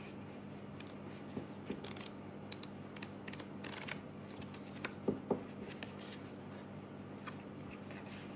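Hands handling a music album's cardboard box and paper contents: scattered light taps and clicks, a short rustle, and two louder knocks about five seconds in.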